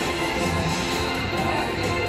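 IGT Valhalla video slot machine playing its free-spins bonus music, steady tones over a low beat, as a new free spin starts.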